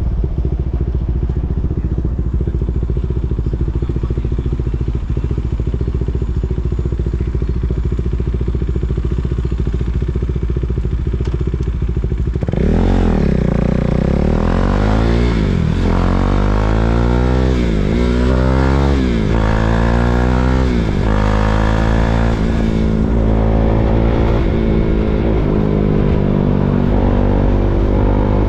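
KTM Duke 390's single-cylinder engine running steadily at low revs, then pulling away a little before halfway: the pitch rises and drops back several times as it shifts up through the gears, settling into a steadier drone near the end.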